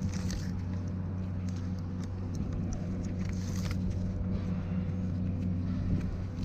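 An engine running steadily with an even, low-pitched drone, with faint scattered clicks and rustles over it.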